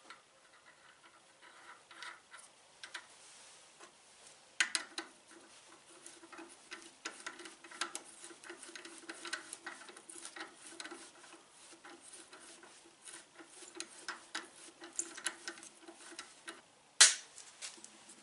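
Threading die in a hand die-stock being turned on a copper starter-solenoid terminal stud clamped in a vise, chasing its threads: irregular clicking and scraping of metal on metal. A sharp metal knock about four and a half seconds in and another near the end are the loudest sounds.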